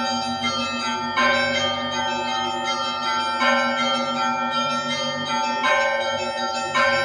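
Russian Orthodox church bells ringing, several bells at once: a heavier strike about every two seconds over continuous ringing of smaller bells.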